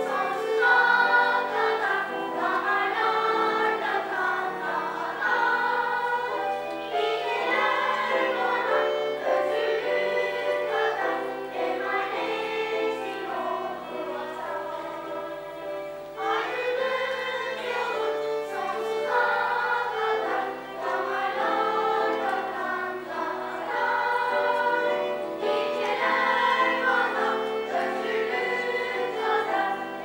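Children's choir singing, accompanied by a violin.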